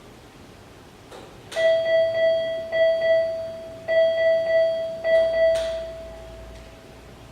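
Electronic alarm from bedside ICU equipment: four ringing beeps, each about a second long, starting about a second and a half in, with the last one trailing off before the end.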